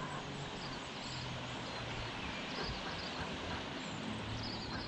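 Steady outdoor river ambience: an even hiss of air and water with a faint low steady hum, and a few short bird chirps near the end.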